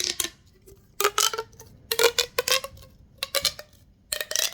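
A handheld fidget toy being worked, giving short bursts of quick clicking and clattering about once a second, five bursts in all.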